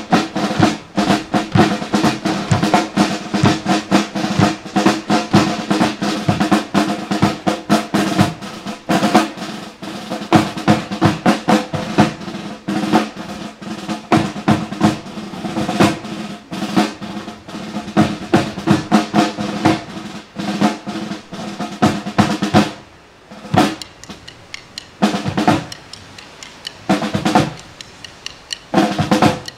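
Two Pearl marching snare drums and a bass drum playing a military drum cadence: fast strokes and rolls, thinning about 23 seconds in to spaced-out hits with short gaps between them.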